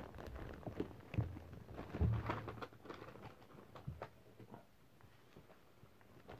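Wrapping paper crackling and tearing as a present is unwrapped by hand, with handling noise and a couple of dull thumps about one and two seconds in; the rustling dies down near the end.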